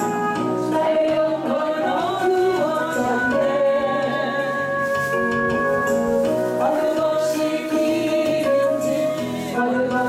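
A woman singing a Korean gospel praise song into a handheld microphone, over steady instrumental accompaniment with held chords.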